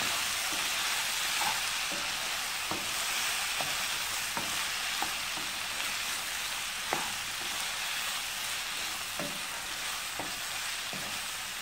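Ivy gourd and onion sizzling in sesame oil in a nonstick kadai, a steady frying hiss, while a wooden spatula stirs and tosses them, with occasional light clicks of the spatula against the pan.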